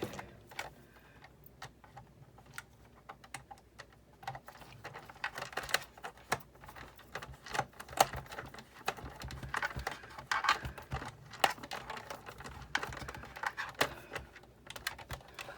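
Irregular light clicks and clacks of the plastic and metal parts of a Big Shot die-cutting machine being handled and fitted back together, some louder knocks among many small ones.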